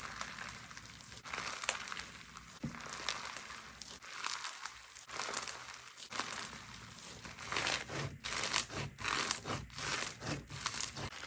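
Slime being squeezed and pressed by hand, making crackly, crinkling squelches that swell and fade, with sharp little pops coming thick and fast in the second half.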